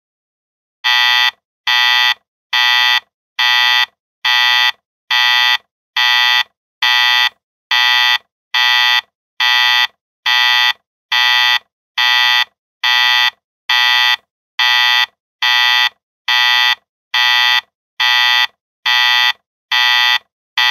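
Digital alarm clock alarm going off as the timer runs out: a loud electronic beep, each about half a second long, repeating a little more than once a second, starting about a second in.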